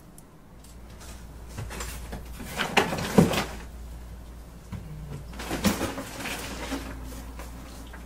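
Cardboard box being opened and rummaged through: flaps and paper rustling, with clusters of light knocks about three seconds in and again near six seconds.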